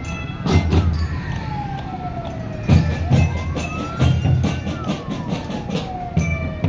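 Loud music from a big parade sound system: heavy bass beats and sharp percussion hits under a siren-like wail that slides slowly up and down, each rise or fall taking about two seconds.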